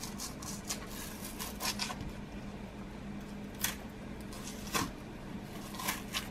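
Green plantain being peeled by hand: the thick, unripe peel, still clinging to the flesh, tears away in short scratchy rustles and snaps, several of them sharper, over a faint steady hum.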